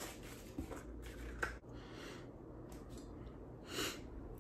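Quiet room with a few faint clicks and rustles of things being handled, and a short breath about four seconds in.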